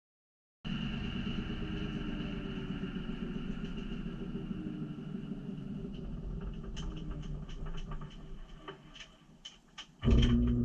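Washing machine running, heard from a camera inside the drum: a steady rumble with a high whine that dies down after about six seconds into a scatter of small clicks, then a loud steady hum starts near the end.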